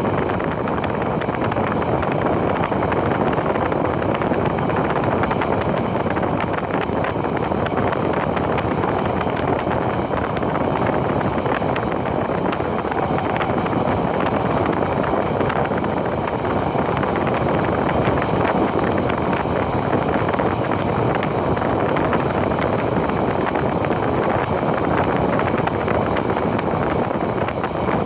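A passenger train running at a steady speed, heard from inside the carriage: a constant rumble and rush of running noise that never lets up.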